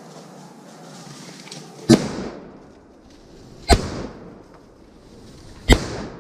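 Three rifle shots from a semi-automatic Browning MK3 Eclipse in .300 Win Mag, fired about two seconds apart, each followed by a short echo that dies away.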